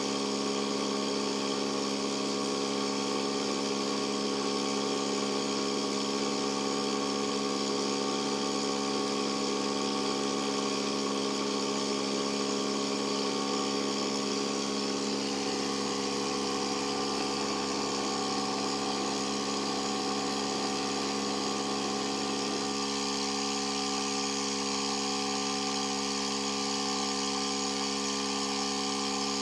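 A thermal barrier coating demonstrator test rig running: a steady machine hum of several held tones over a hiss, from its gas burners and cooling-air supply. About three-quarters of the way through, part of the hum drops away while the rest keeps running, as the rig switches its heating off and keeps the cooling air on.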